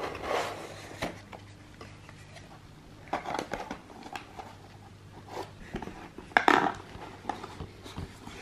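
Handling noise from a cardboard collectible-wand box: fingers scraping and tapping the box and its insert and knocking it on a wooden table, in a few short bursts with scattered clicks, the loudest about six and a half seconds in, over a faint low hum.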